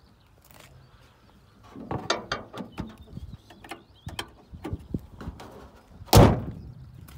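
Renault Kangoo Z.E. van's steel bonnet being handled: a run of metallic clicks and knocks, then the bonnet slammed shut once, about six seconds in, the loudest sound.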